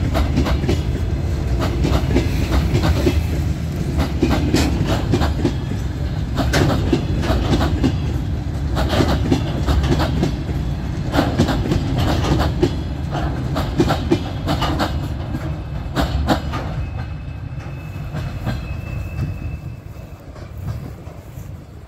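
Open-top freight wagons rolling past, their wheels clacking over rail joints above a steady low rumble. The sound dies away near the end as the last wagon goes by.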